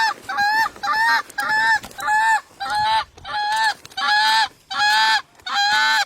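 Goose honking: a run of about eleven loud, evenly spaced honks, about two a second, each the same short call.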